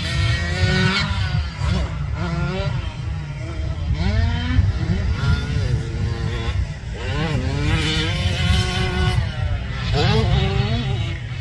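Cobra 50 youth motocross bike's small two-stroke engine revving up and dropping back again and again as it rides the track, pitch climbing through each gear, over a steady low rumble.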